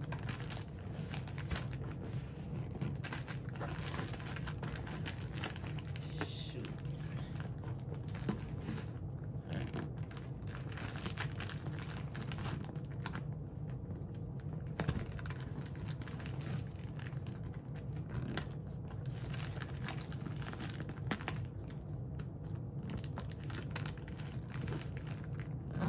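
Irregular rustling, crinkling and clicking of belongings and plastic bags being handled and packed into a travel bag, over a steady low hum.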